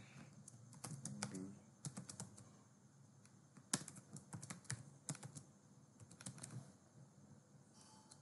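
Faint keystrokes on a computer keyboard, typed in short irregular runs.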